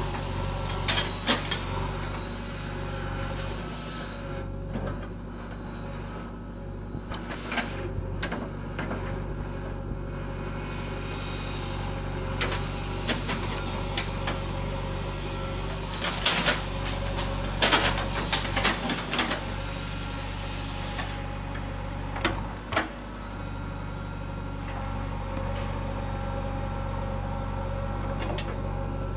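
JCB 3DX backhoe loader's diesel engine running steadily while the backhoe digs, with scattered sharp clanks and scrapes of the bucket against stony soil, thickest a little past halfway.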